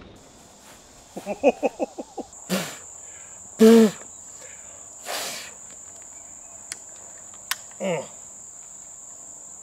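Steady high-pitched buzz of insects in the trees, setting in about two seconds in. Over it, a man gives a quick burst of laughter and a few short wordless exclamations, and there are a couple of sharp clicks near the end.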